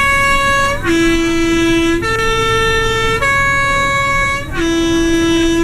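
Swiss PostBus three-tone horn sounding its traditional mountain-road call: three held notes, high, low, then middle, about a second each, played twice in a row.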